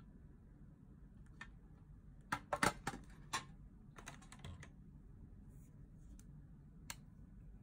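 Light plastic clicks and taps as a water brush and paintbrush are lifted out of the tray of a tin watercolor set: a quick cluster of clicks about two and a half seconds in, a few more around four seconds, and one single click near the end.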